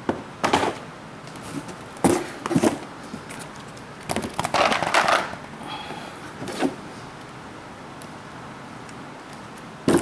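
Cardboard packaging and the box's moulded insert being handled: a handful of short scrapes and knocks, busiest around four to five seconds in.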